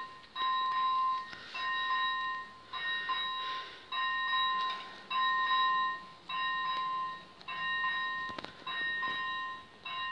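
Railway level-crossing warning signal sounding: a ringing tone repeated about once a second, about nine times.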